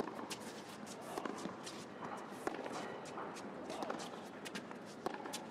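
Tennis rally on an indoor hard court: rackets strike the ball with sharp pops a second or more apart, mixed with short squeaks and scuffs of players' shoes on the court.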